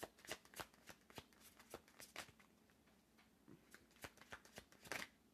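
Deck of cards being shuffled by hand: a faint, irregular run of soft card slaps and flicks, with a louder snap near the end.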